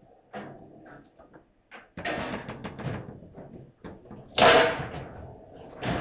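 Foosball table in play: plastic players and rods knocking and clattering the ball. About four and a half seconds in comes one loud, hard slam, a shot striking into the goal.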